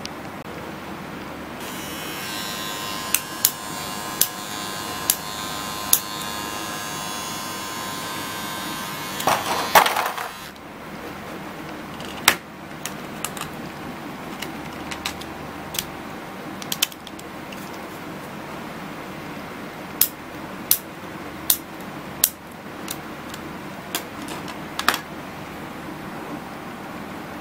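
Braun MGK3060 electric beard trimmer running with a steady buzz that stops about ten seconds in, followed by a series of separate sharp plastic clicks as comb attachments are fitted and the trimmer is handled.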